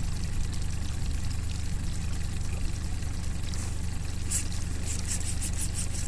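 Boat motor idling with a steady low drone. From about three and a half seconds in, a fishing reel clicks rapidly as a pike is hooked and the rod bends under the fish.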